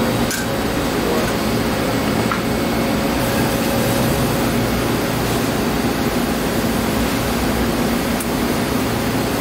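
Steady rushing airflow with a low hum from a cleanroom's ventilation and wet-bench exhaust.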